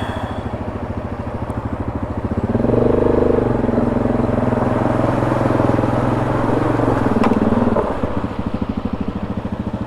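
ATV engine idling, then throttled up for about five seconds, with the engine note rising and louder, before settling back to idle.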